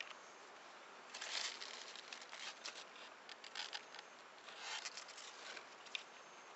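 Myoga leaves and stems rustling as they are brushed, in two louder bursts about a second in and near the middle, with scattered light crackles between.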